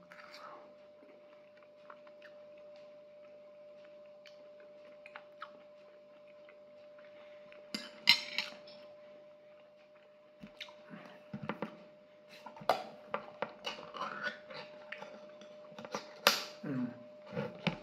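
Metal fork clinking and scraping on ceramic plates, with chewing in between, under a faint steady hum. There is a sharp clatter about eight seconds in, and the clicks come thickly in the second half.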